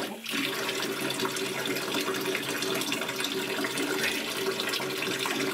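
Water running steadily from a bathtub tap while a cat is being washed in the tub.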